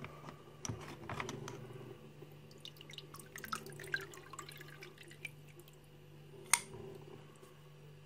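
Liquid sloshing and dripping as a heavy padlock is lifted out of a vinegar bath in a plastic tub, with small splashes and drips falling back into the liquid and a single sharp click about six and a half seconds in.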